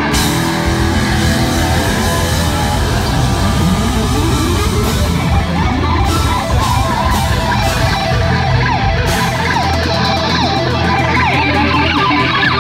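Live heavy metal played loud: a distorted electric guitar shredding fast lead runs over the band, breaking into a flurry of pitch slides in the last few seconds.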